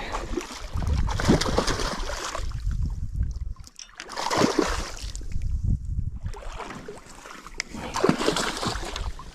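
Water splashing in three bouts as a hooked brown trout thrashes at the surface while it is drawn in and landed.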